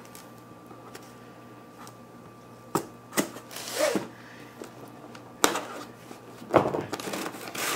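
Scissors cutting the packing tape on a cardboard box and the box being opened: a handful of sharp clicks and short scrapes, the loudest about two-thirds of the way through, followed by rustling.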